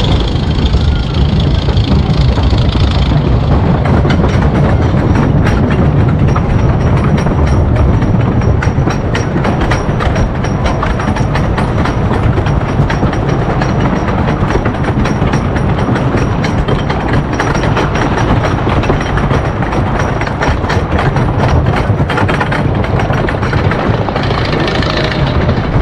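Wooden roller coaster train climbing its chain lift hill: a steady low rumble with rapid, dense clicking of the lift chain and anti-rollback ratchets, setting in a few seconds in and thinning out near the crest.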